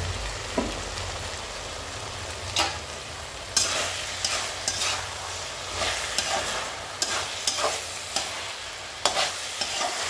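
Thick curry sizzling in a metal kadai while a metal spatula stirs it, with a string of sharp scrapes and clinks of the spatula against the pan from about two and a half seconds in.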